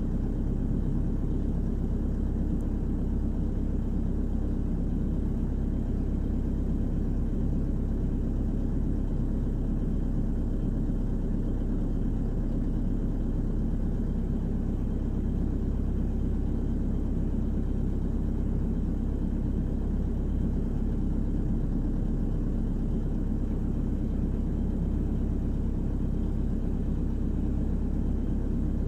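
Volvo EWR150E wheeled excavator's diesel engine and hydraulics running steadily under working load, heard from inside the cab.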